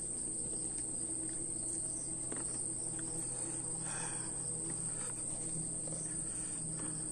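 A steady, unbroken high-pitched chorus of forest insects, with a few faint soft ticks as rice is scooped by hand from a plastic container.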